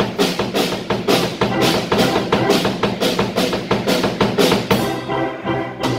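Live band playing: a drum kit keeps a quick, steady beat over held bass and organ tones.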